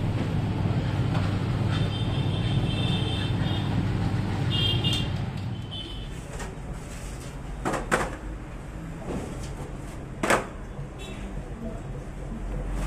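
Commercial dough mixer running, its beater churning stiff dough in a steel bowl with a steady low hum. Partway through the hum stops, and two sharp clacks follow a couple of seconds apart.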